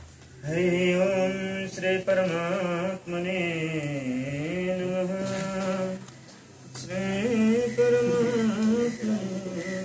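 A man chanting a Hindu ritual mantra in long, held tones. There are two phrases, with a short pause about six seconds in.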